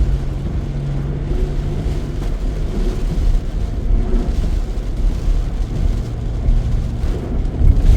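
A vehicle being driven, with steady engine drone and road noise heard from inside the cab.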